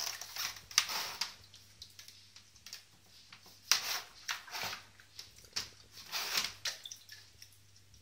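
A cat splashing and lapping at the water of an electric pet drinking fountain: irregular short splashes several times over, with a steady low hum underneath.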